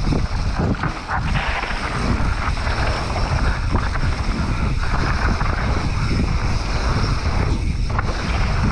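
Wind rushing over a mountain bike's camera microphone at speed, with a heavy steady rumble, the hiss of knobby tyres rolling on a dirt trail and frequent small knocks from the bike over bumps.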